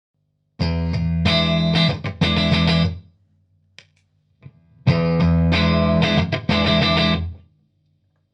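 Electric guitar played through a Limetone Audio Focus NX compressor pedal with the level turned up for a clear, compressed tone: two phrases of about two and a half seconds each, with a few stray notes in the gap between them.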